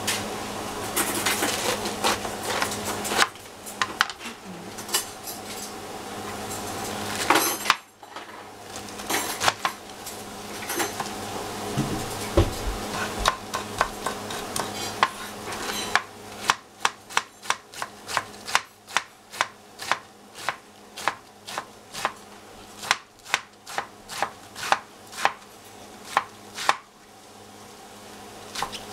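Knife cutting cabbage into julienne strips on a chopping board: quick, uneven strokes at first, then, past the middle, a steady run of clear chops about two a second.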